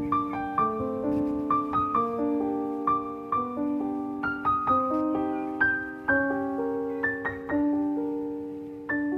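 Background piano music: a slow melody with sustained chords, each note struck and left to fade.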